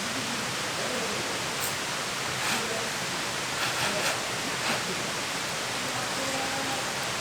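Steady rushing noise, like flowing water or rain, with a few soft clicks in the middle.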